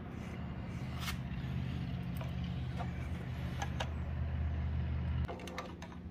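A steady low mechanical hum that stops abruptly about five seconds in, with a few light clicks and taps over it.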